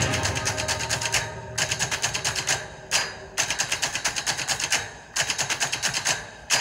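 Several youth motocross bikes' small two-stroke engines revving on the start gate. They make a rapid, crackling buzz in bursts, with a few brief drops in level between the blips.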